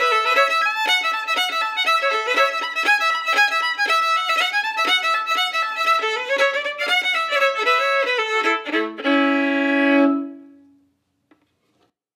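Fiddle music: a fast folk tune of quick notes that ends on a long held note about nine seconds in, which fades out, leaving near silence.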